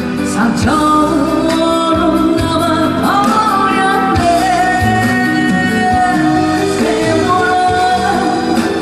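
A singer holding long, gliding notes over a loud backing track with a steady beat.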